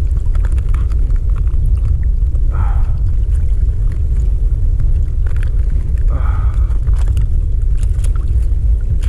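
Steady low rumble of sea water and wind buffeting a camera held just above the waves. A brief faint voice-like sound comes twice, about two and a half and six seconds in.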